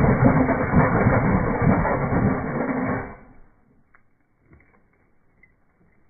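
Power drill running and cutting through the wall for a dryer vent hole, stopping abruptly about three seconds in, followed by a few faint clicks.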